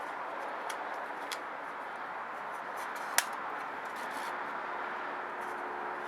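A few light clicks and one sharper click from the generator's recoil starter parts being handled, over a steady background hiss.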